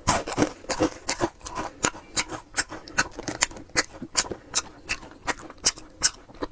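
A rapid series of sharp crackles and cracks, about four a second, from frozen chocolate malt balls (Maltesers-type candy) that have been frozen until they split.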